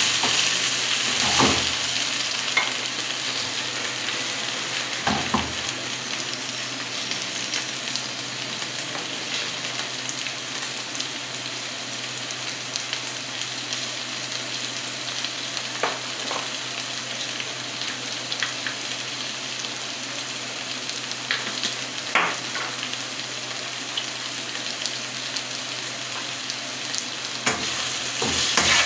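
Cut okra and onion sizzling in oil in a pan, with a wooden spatula stirring and scraping the pan now and then, more busily near the start and again near the end.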